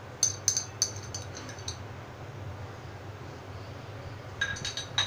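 A spoon clinking against a container as ghee is scooped out and dropped onto biryani rice: a quick run of light ringing clinks in the first second and a half, then another short cluster near the end.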